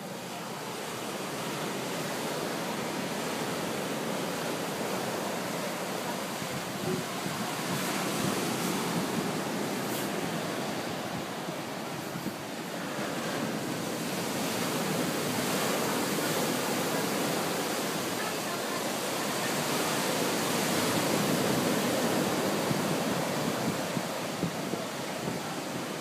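Ocean surf breaking and washing up a sandy beach: a steady rush of water and foam that swells and eases every few seconds.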